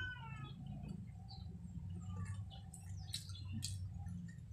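Close-up mukbang eating sounds: chewing and wet lip smacks as food is eaten by hand, heard as scattered sharp clicks over a steady low hum. A short, high squeak that falls in pitch sounds at the very start.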